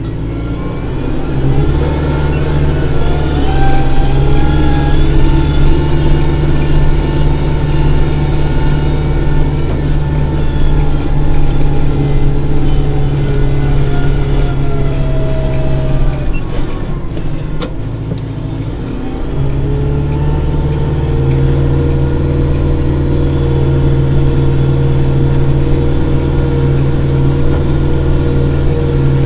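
Kubota tractor's diesel engine running at steady revs, with a higher whine that wavers in pitch above the engine note. Just past halfway the engine note sags for a few seconds, then comes back up and runs steady again.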